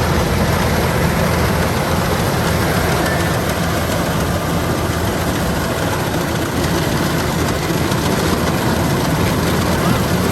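Kubota DC-105X combine harvester running steadily: a deep engine hum under a dense, even mechanical rush, with no change in level.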